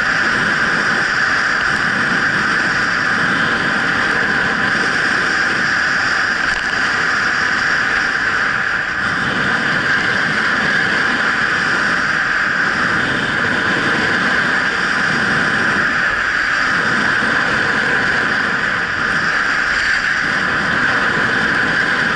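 A steady, loud rush of wind on the microphone mixed with the hiss of sliding over packed snow, from a camera carried downhill on a ski run.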